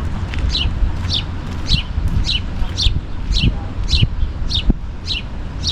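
A bird calling over and over: a short, high chirp falling in pitch, repeated nearly twice a second, over a steady low rumble.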